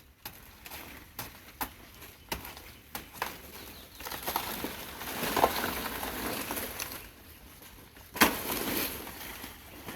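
A blade chopping into a banana plant's soft stem: a string of sharp chops, then a few seconds of rustling leaves, and a loud chop about eight seconds in followed by more rustling.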